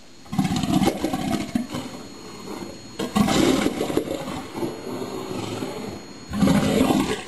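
Southern elephant seal bull roaring: three loud roars about three seconds apart, each a rapid train of deep pulses that fades over a second or two.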